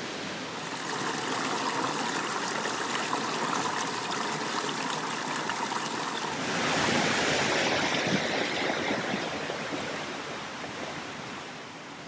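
A small mountain stream rushing and splashing over boulders in a little cascade, a steady wash of water that grows louder a little past halfway and fades near the end.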